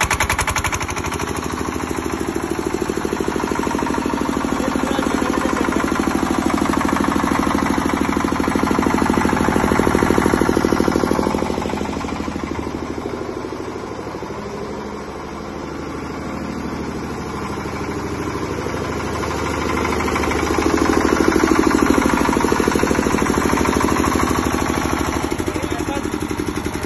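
Air-cooled 10 kVA diesel generator set's engine running steadily after a hand-crank start, with a rapid, even diesel chugging. It grows quieter around the middle and louder again later.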